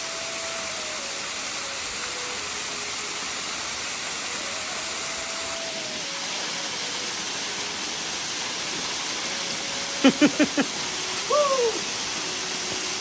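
Small waterfall rushing steadily, a continuous hiss of falling water. About ten seconds in, a quick run of five short, sharp calls rises above it, then a brief call that rises and falls.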